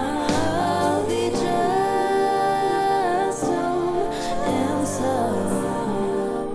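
Pop song: a sung melody over instrumental backing with a steady bass, with one note held for a second or two near the middle.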